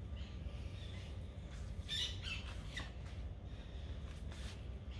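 A bird squawking in short calls, clustered about two seconds in, over a low steady background rumble.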